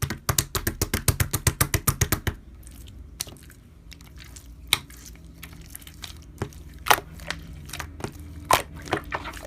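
Slime being pressed and squished by hand, giving a quick run of sharp clicking pops for about two seconds, then scattered single pops.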